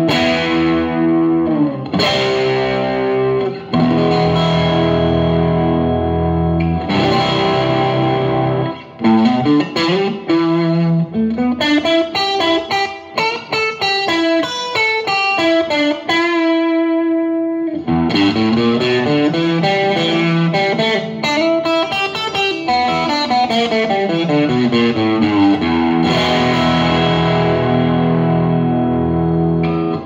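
Electric guitar played through a Vox AC10 C1 valve combo amplifier, with a slightly driven tone. Held chords ring out at first, then quick runs of single notes climb and fall with one long held note in the middle, and chords return near the end.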